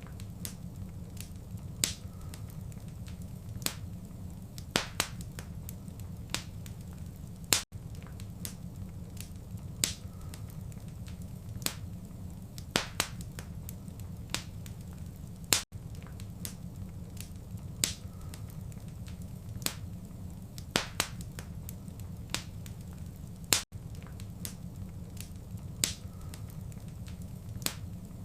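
Wood fire burning in a fireplace: a steady low rumble of flames with sharp crackles and pops every second or so. It is a short recording looped about every eight seconds, with a brief dropout at each seam.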